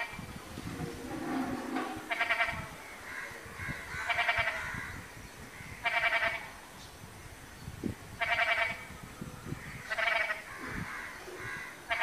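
White-breasted waterhen calling: a loud, quavering call about half a second long, repeated steadily roughly every two seconds.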